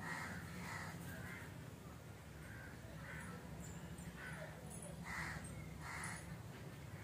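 A crow cawing repeatedly, short harsh calls coming about once a second, over a steady low hum.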